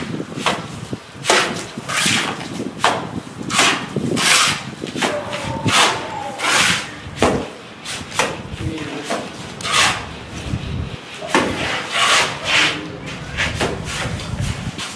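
Masons' trowels flicking and slapping wet cement mortar onto a brick wall and scraping it in, a quick stroke about every half second to a second from two workers side by side.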